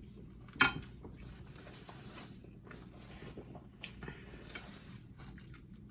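Eating at a plate: one sharp click about half a second in, then soft, faint chewing and handling sounds.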